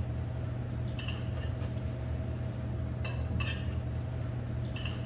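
Chopsticks clinking against a metal serving pan and dishes while a meal is eaten, in three short bursts about every two seconds, over a steady low hum.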